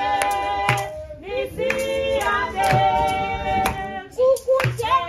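Several women's voices singing together, with sharp hand claps. The singing breaks off briefly about a second in and again near the four-second mark.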